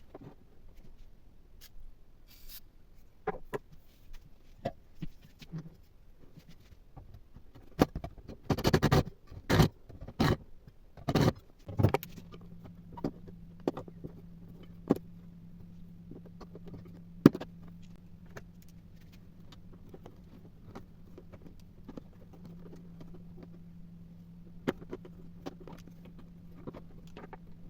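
Objects being handled on a work surface: scattered clicks and knocks, with a run of louder clattering knocks about eight to twelve seconds in. After that a steady low hum sets in under occasional light taps.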